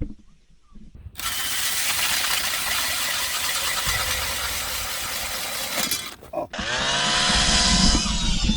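Power ice auger drilling holes in lake ice: a loud grinding noise for about five seconds, then after a short break the motor spins up with a quickly rising whine and runs steadily.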